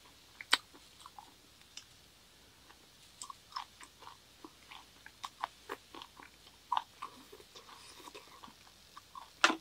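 Close-up mouth sounds of a person chewing grilled beef small intestine (gopchang) eaten whole: irregular wet clicks and smacks, with a sharper click about half a second in and a louder cluster near the end.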